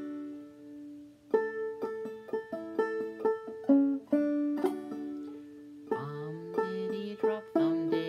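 Banjo played clawhammer style in double D tuning (aDADE), picking out a phrase of the melody slowly, note by note. A ringing note dies away first, and the struck notes begin about a second in, coming thicker near the end.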